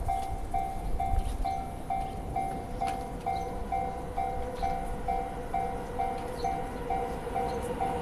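Japanese railway level-crossing warning bell ringing in an even electronic 'kan-kan' rhythm, about two rings a second, with the barriers down: the warning that a train is approaching.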